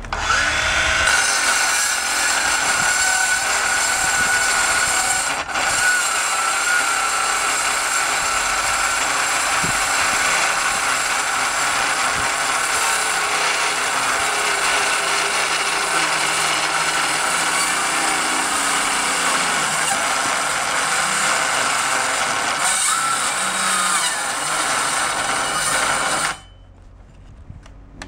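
Hilti SCM 22-A cordless metal-cutting circular saw cutting through two 32 mm rebars laid together: a loud, steady grinding whine of the blade under load, with a brief dip about five seconds in. Near the end the saw cuts out and goes quiet. This fits the battery's overload protection, which switches the saw off when it is pushed too hard.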